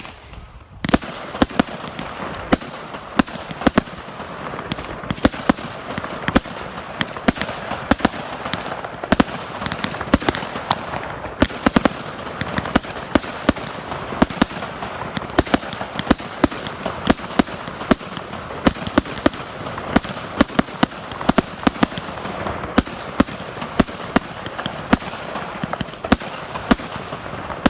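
A 100-shot firework cake, Lightning Strike, firing in a steady stream of sharp reports, about two to three a second, over constant crackling.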